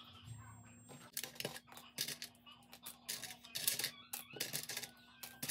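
Loose Lego plates clicking and clattering against each other and the tabletop as they are handled and spilled out, in quick irregular runs of plastic clicks and rattles from about a second in.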